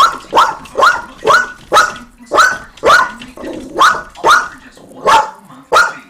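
A dog barking over and over in play, sharp barks about two a second without a break.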